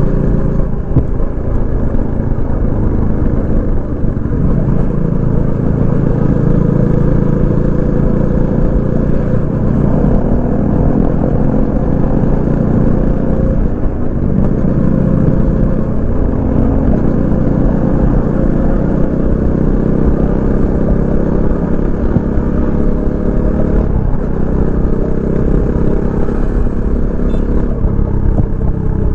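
Bajaj Dominar 400 UG's single-cylinder engine running through its stock exhaust while riding. The pitch climbs steadily, dropping and climbing again about 14 and 24 seconds in.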